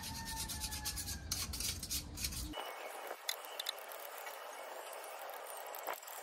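A thin metal tool scraping and rasping along the wires of a small charcoal grill's grate, knocking off loose grease and char, in rapid repeated strokes. About two and a half seconds in, the low rumble drops out abruptly, leaving a thinner, hissier scraping with a few sharp clicks of metal on metal.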